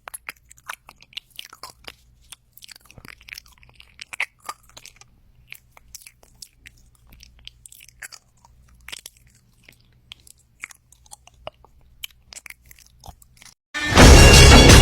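Close, irregular crunching and chewing of something crisp, many small bites in quick succession. Loud music cuts in near the end.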